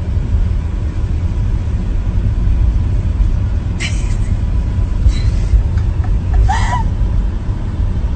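A steady low rumble with a few brief higher noises over it, the last of them about six and a half seconds in with a short rising-and-falling pitch.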